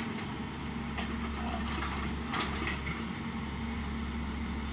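Excavator's diesel engine running steadily, with a few short sharp clicks over it.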